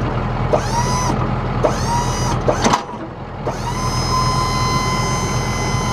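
Electric hydraulic pump motor on a Boss Power-V XT snow plow whining in short runs as the down button is pressed, lowering the plow head: two brief runs, a clunk near the middle, then one longer run of about three seconds. A truck engine idles underneath.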